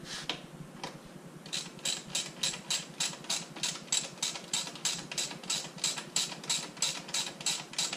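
Ratchet wrench clicking steadily, about three clicks a second from about a second and a half in, as it loosens the 10 mm bolt holding the stock exhaust silencer.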